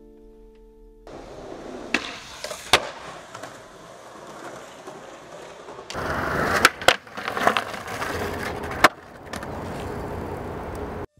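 Skateboard wheels rolling on concrete, punctuated by sharp clacks of the board striking the ground. The rolling grows louder about halfway through and stops abruptly near the end. A short tail of music fades out in the first second.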